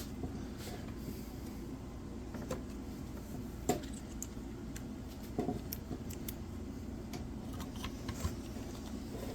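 Tools being handled on a workbench: a few light metallic clicks and taps over a steady low hum, with no impact driver running.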